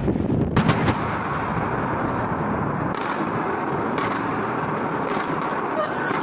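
Explosive demolition charges firing in a building: sharp cracks about three seconds in, another a second later, and a quick cluster near the end, over steady noise.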